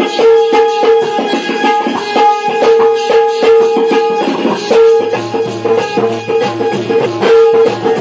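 Live instrumental music of a Konkan Shakti-wale naach troupe: a melody with a held note over a steady drum rhythm, and a deep bass line that comes in about five seconds in.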